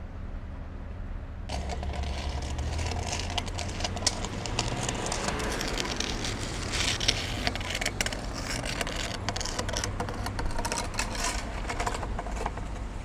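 City street traffic: cars driving past on a wet road, with engine rumble and tyre noise. The sound gets suddenly fuller about a second and a half in.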